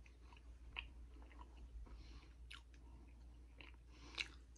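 Quiet chewing of a bite of crumbly steamed suet pudding: faint wet mouth smacks and clicks, the sharpest a little past four seconds in.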